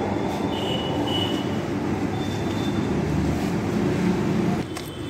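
Road traffic rumble from the street, steady and low, with a few faint high tones in the first half; it eases off near the end.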